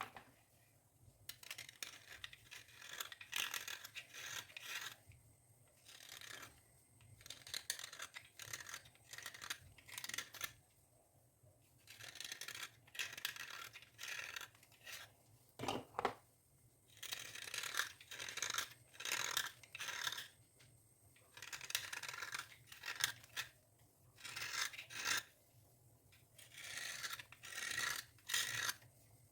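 Dry scraping and rubbing strokes on a surface, coming in repeated bursts of about a second or two with short pauses between them.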